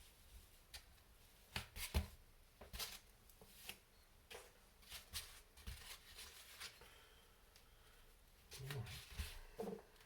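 Scattered light clicks and rustles of small kit parts being handled on a workbench.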